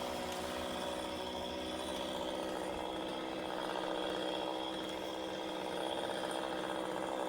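Chainsaw engine running steadily at an even speed, without revving.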